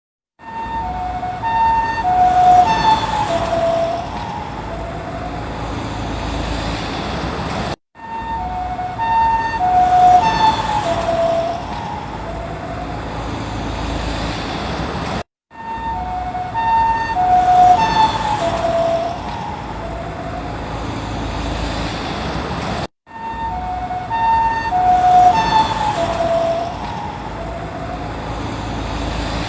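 Ambulance two-tone siren passing by, its alternating high and low notes dropping in pitch as it goes past (the Doppler effect), then fading into road noise. The same short pass-by repeats four times, with a brief cut to silence between repeats.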